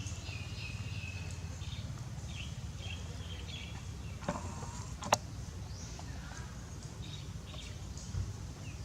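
Outdoor ambience: a steady low rumble with scattered short high chirps, and two sharp clicks, one a little past four seconds in and a louder one about five seconds in.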